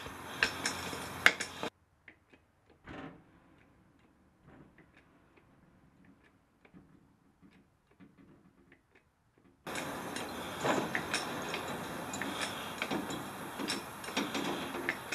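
Hand-pumped hydraulic body-work ram (porta power) being worked to push a sheet-metal body panel up, giving irregular light clicks and ticks over a hiss. The sound drops to near silence, with only faint clicks, from about two seconds in until near ten seconds, then the clicking returns.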